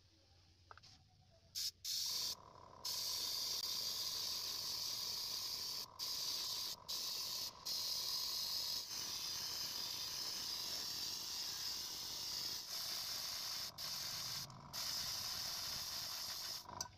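Airbrush spraying white paint: a steady hiss of air and paint through the nozzle with a faint whistle under it, starting about two seconds in and broken by several short pauses as the trigger is let off.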